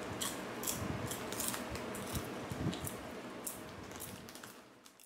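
Popcorn being eaten from a crinkly plastic snack bag: irregular sharp crackles of the bag being handled and of the popcorn crunching, fading out near the end.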